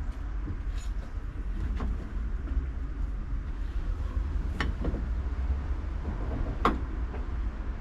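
Two-axle vintage electric tram running along the track, heard from the driver's cab: a steady low rumble broken by about four short sharp knocks.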